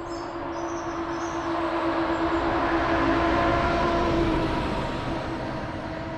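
A vehicle passing: a steady hum with a few held tones swells to a peak about halfway through, then fades again.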